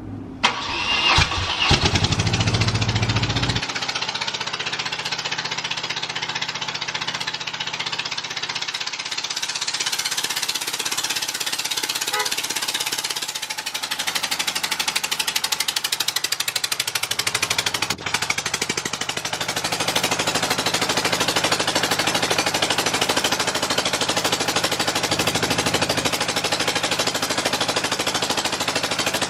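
BMW R100RS air-cooled boxer twin cranked on its electric starter, catching after about three seconds, then idling with a fast, choppy beat. It runs on one cylinder because one carburettor is missing, which makes the idle unstable.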